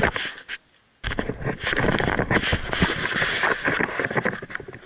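Plastic toboggan sliding over snow: a loud, continuous scraping and crackling from about a second in that fades near the end, as the ride stops.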